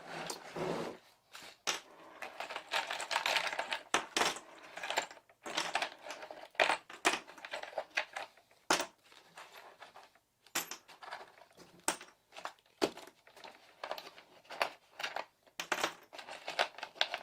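Small rotary-tool accessories, such as drill bits and grinding wheels, being pulled out of a plastic storage case and set down, with irregular clicks and clatters of metal and plastic and light rustling between them.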